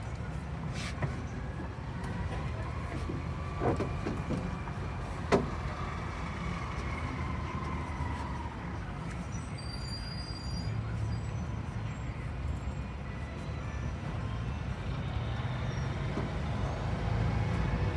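City bus moving, heard from inside the cabin: a steady low engine and road rumble, with two sharp knocks about four and five seconds in, growing a little louder near the end.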